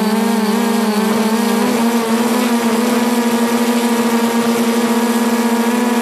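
Electric motors and propellers of a radio-controlled V-tail FPV aircraft running, picked up by its onboard camera as a steady pitched hum. The pitch wavers slightly during the first couple of seconds, then holds steady.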